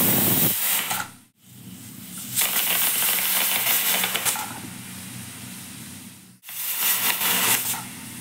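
Aluminium stovetop pressure cooker whistling: a loud steam hiss as the weight lifts and vents, spitting starchy froth from the cooking rice. Three bursts of hiss, each cut off abruptly. These are the whistles counted to tell when the rice is cooked.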